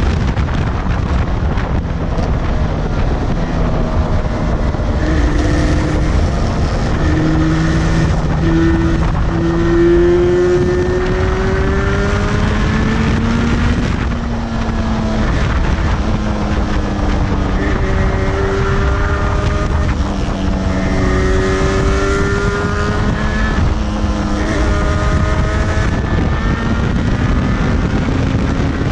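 Yamaha two-stroke twin motorcycle engine running at speed, its pitch climbing under acceleration and dropping back several times as the rider shifts and eases off. Heavy wind buffeting on the microphone from the windscreen runs under it.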